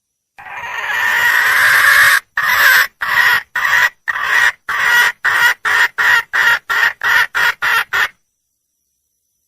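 Red junglefowl hen (wild hen) calling for a mate: one long drawn-out note, then about a dozen short repeated notes that come quicker and quicker before stopping.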